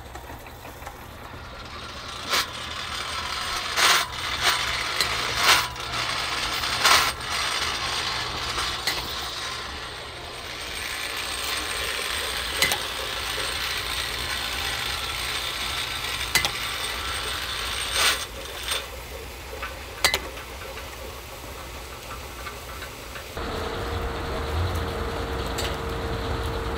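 Metal mechanism on a wooden rail clicking and clanking in sharp, scattered strokes over a steady mechanical hiss. Near the end the sound gives way to a steady machine hum.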